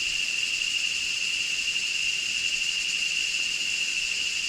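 Tropical insect chorus: a continuous, shrill, high-pitched drone that holds steady throughout.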